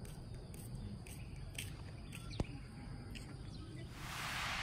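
Quiet outdoor ambience: a low wind rumble with faint, short high-pitched chirps repeating irregularly. A single sharp click comes about two and a half seconds in, and a rushing hiss swells near the end.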